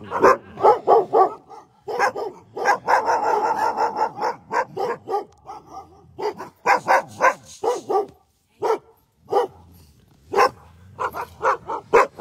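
Alaskan husky sled dogs barking and yipping in quick runs of short barks, with a lull of about two seconds past the middle before the barking picks up again.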